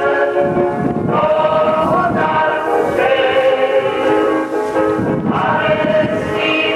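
A group of voices singing a slow devotional hymn together in long held notes, a new line beginning every two seconds or so.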